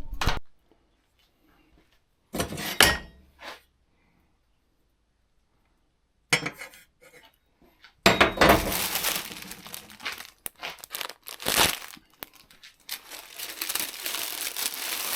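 Rustling and crinkling with some clinking, in short scattered bursts at first and almost without a break from about eight seconds in: handling noise from materials and small metal parts being worked.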